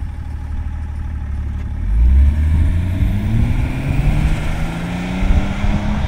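BMW E39 530d's M57D30 straight-six turbodiesel, breathing through a Proex aftermarket exhaust, pulls away. It runs low and even at first, then about two seconds in it accelerates, louder, with its note rising steadily as it drives off.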